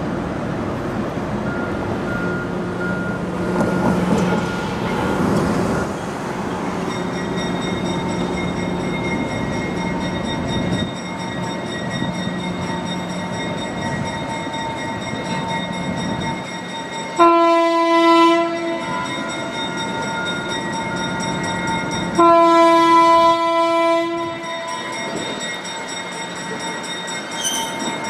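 1942 GE 65-ton center-cab switcher locomotive's diesel running steadily as it pulls slowly along the track. Its horn sounds two blasts, a short one and then a longer one about five seconds later, both louder than the engine.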